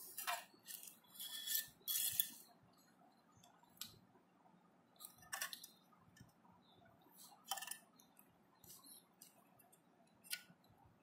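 Light metallic clicks and taps as small metal parts and tools are handled while a dry electric iron is reassembled. There is a quick cluster in the first two seconds or so, then single clicks every second or two.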